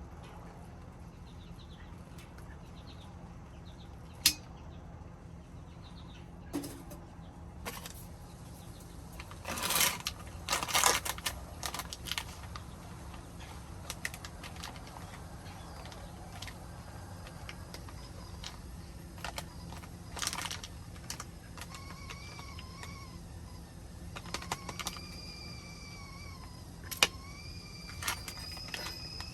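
Wood fire crackling in a stainless steel wood stove: scattered sharp clicks and pops over a steady low hum, with a cluster of rattling clicks about ten seconds in. A faint, wavering high whine comes and goes near the end.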